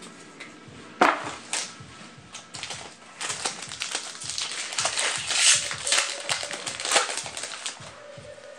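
Foil booster-pack wrapper crinkling and trading cards being handled, with a sharp snap about a second in and a denser stretch of crinkling in the middle.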